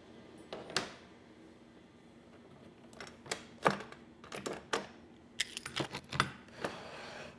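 Irregular light knocks and clicks of MDF boards being lifted, slid and set down on a CNC router table. There is one near the start, then many close together from about three seconds in.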